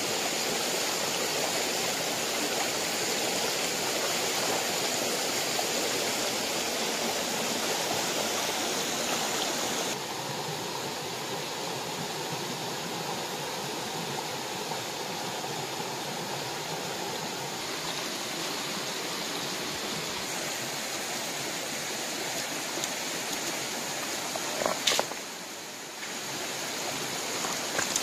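Shallow rocky stream rushing steadily, a little quieter after about ten seconds. A couple of sharp knocks near the end, like stones being handled.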